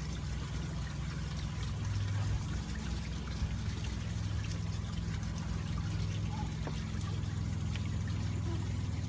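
Pool water draining steadily through a siphoning pool-vacuum hose, with a steady low hum underneath.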